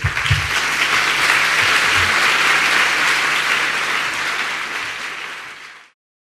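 Audience applauding, easing off slightly and then cut off suddenly near the end.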